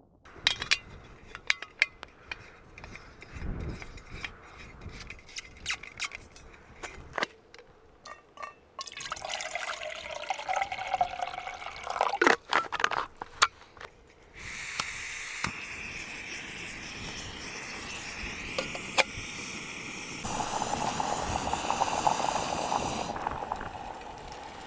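Clicks and clatter of camp-stove gear being handled, then water poured from a plastic bottle into a Primus stove pot, the pitch of the filling rising. About 14 seconds in, the canister gas stove's burner starts a steady hiss, which grows stronger about 20 seconds in and eases near the end.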